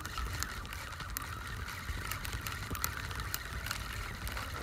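Fishing reel buzzing steadily for about four seconds, stopping near the end, as the kite pulls on the line; wind rumbles on the microphone underneath.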